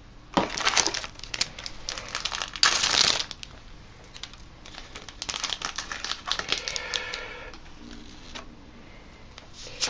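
Foil booster-pack wrappers crinkling as they are handled, with two loud rustling bursts about half a second and three seconds in and quieter crinkles between.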